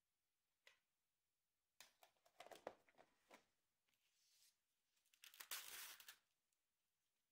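Thin plastic packaging of a natto tub crinkling and rustling in short spells as it is handled and opened, loudest about five to six seconds in, after a small click near the start.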